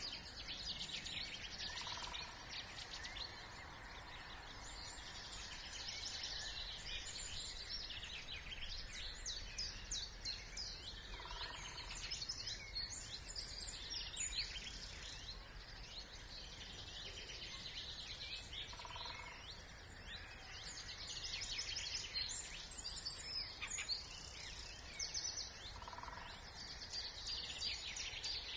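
Several songbirds singing at once in a dense spring chorus of fast, high phrases, with a short lower note recurring about every seven seconds. A steady low rumble of background noise lies underneath.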